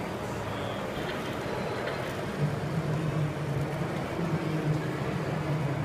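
Radio-controlled model cement mixer truck running, a steady low engine-like hum that grows louder and pulses from about two and a half seconds in, over the din of a busy exhibition hall.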